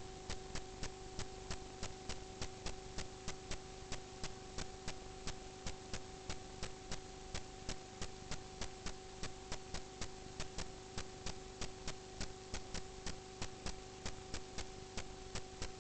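Rhythmic ticking from HVAC ductwork, about three to four sharp ticks a second at an even pace, over a steady hum from the running system.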